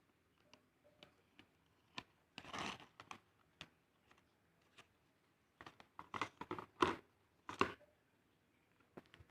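Cake packaging being handled and opened by hand: scattered clicks and rustles, a short tearing noise about two and a half seconds in, and a quick run of sharp crackles from about six to eight seconds.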